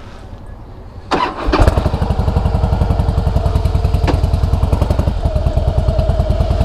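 Harley-Davidson Softail Heritage's air-cooled Twin Cam V-twin with Screamin' Eagle exhausts being started: after a short quiet spell it cranks and catches about a second in, then settles into a loud, even, lumpy idle.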